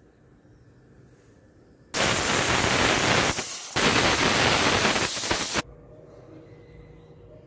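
Pressure cooker whistle venting steam: a loud, even hiss in two bursts of almost two seconds each, starting and stopping abruptly, the sign that the cooker has come up to pressure.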